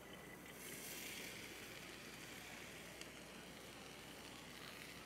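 Soaked kidney beans tipped into hot masala in an electric pressure cooker pot, giving a faint, steady sizzle. A small click about three seconds in.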